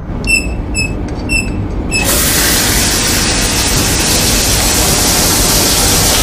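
Shower spray hissing steadily, cutting in suddenly about two seconds in. Before it there are a few short, high chirps over a low rumble.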